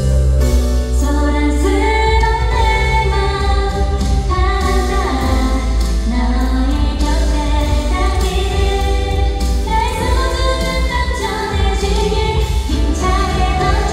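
A woman singing a Korean pop song into a microphone over instrumental backing, in a live concert recording.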